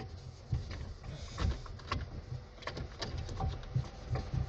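Cloth rag wiping and buffing the car's plastic dash trim: irregular scuffing and rubbing with light knocks and clicks.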